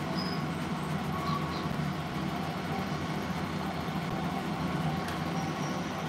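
A steady low hum of room machinery, with a few faint, short, high chirps from the parrots.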